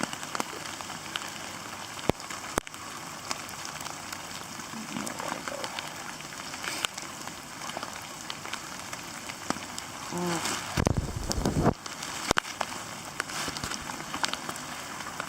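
Steady heavy rain pattering down, with scattered sharp drop clicks. About eleven seconds in there is a brief loud low rumble.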